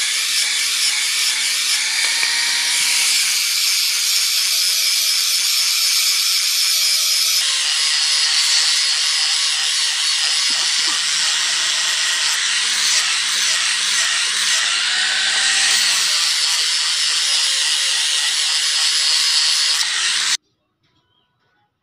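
Electric angle grinder with a sanding disc running steadily and sanding a wooden block: a high motor whine mixed with the rasp of abrasive on wood. The sound cuts off abruptly near the end.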